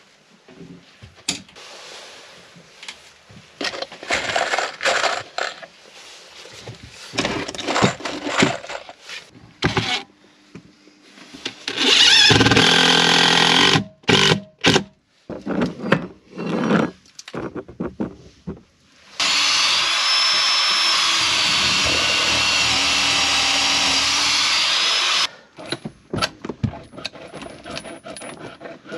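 Cordless drill-driver running in two bursts: a short one of about two seconds, then a steady run of about six seconds, as a screw is driven into the boat's wooden framing. Scattered rubbing and knocking from hands and tools come before and between the runs.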